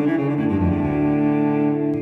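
Orchestral background music, with low strings holding long, sustained notes.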